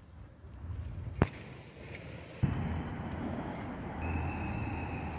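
Outdoor street ambience with a low traffic rumble. A sharp click about a second in; about halfway the ambience jumps suddenly louder, and a thin steady high tone joins near the end.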